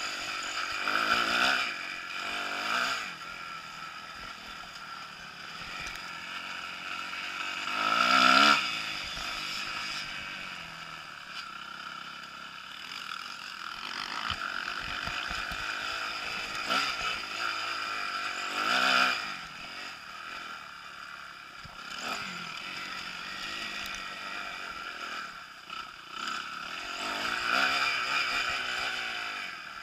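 Kawasaki KX250F's single-cylinder four-stroke engine revving up and backing off as the dirt bike is ridden around a motocross track, with four strong surges in revs and smaller ones between.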